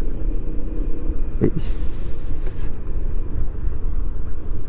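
Steady low rumble of wind and an automatic scooter running downhill, with a short click and then a high hiss lasting about a second, about two seconds in.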